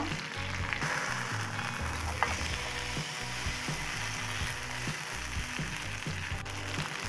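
Marinated pomfret shallow-frying in oil on a non-stick dosa tawa: a steady sizzling hiss, with a few light clicks of a metal spatula and spoon against the pan as the fish is turned and basted.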